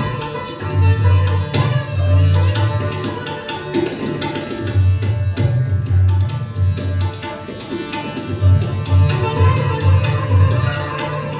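Sitar playing a Rajakhani gat in Rag Kalawati with tabla accompaniment: quick plucked sitar notes over tabla strokes. The tabla's deep bass strokes come and go, dropping out for a few seconds twice.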